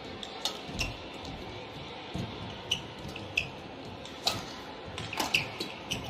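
Badminton rally: sharp racket hits on the shuttlecock and short shoe squeaks on the court, coming a second or less apart, over a steady hum of arena noise.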